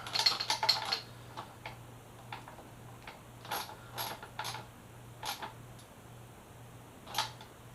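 Hand tool tightening the fastener of a flush-mount LED turn signal on a motorcycle's front stay bracket: a quick run of metallic clicks at the start, then single clicks every half second or so.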